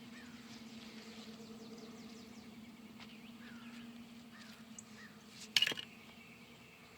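Birds calling: a string of short, falling chirps, with a steady low hum beneath them that fades out. A single sharp knock about five and a half seconds in is the loudest sound.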